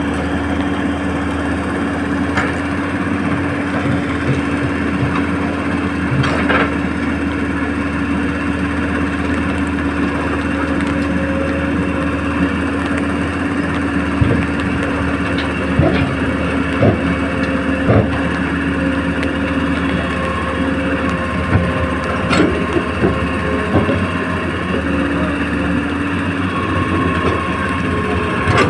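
Hitachi excavator running steadily while digging, with scattered knocks and clanks. In the second half, higher whining tones come and go.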